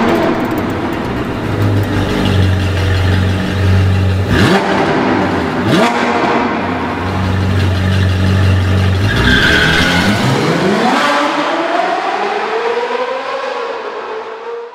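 C8 Corvette's V8 exhaust under acceleration, revving up, with two sharp cracks about a second and a half apart. The revs climb steeply again later on, then the sound fades out at the end.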